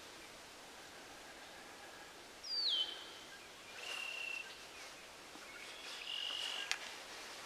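Spring swamp at night through an omnidirectional microphone without its parabolic dish: faint background hiss with a few high whistled animal calls, one sliding down then holding, two short and steady, and a sharp click near the end.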